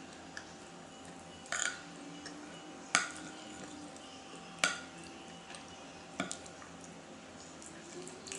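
Metal spoon clinking and scraping against a plate as food is scooped up, four sharp clinks about a second and a half apart.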